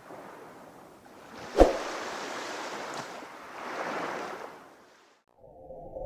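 Sea waves washing in and swelling then fading, with one sharp knock about one and a half seconds in; the sound drops out briefly near the end, then a muffled rumble begins.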